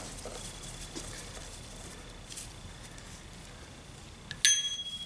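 A small steel screw is dropped into a stainless steel magnetic parts tray about four and a half seconds in, giving one sharp clink and a clear metallic ring that lasts a couple of seconds. Before that come faint small clicks of a screwdriver backing the screw out of the rifle.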